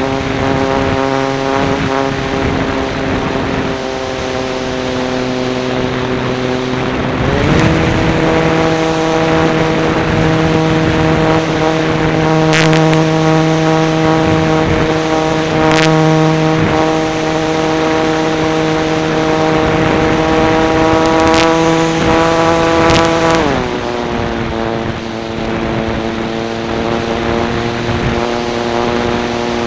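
Model Cessna's engine running steadily, heard from a camera mounted on the model. Its pitch rises as the throttle opens about a quarter of the way in, holds higher, and drops back about three-quarters of the way through, with a few sharp clicks over the top.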